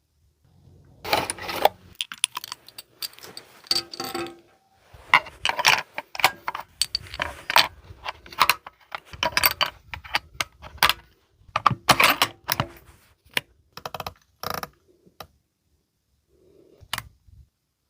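A Weatherby Vanguard Talon bolt-action rifle being handled: an irregular run of sharp metallic clicks and clacks, some with a brief ring, that stops about three seconds before the end.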